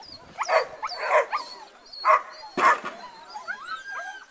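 A dog barking repeatedly while running an agility course: four loud barks in the first three seconds, then softer, higher yelps.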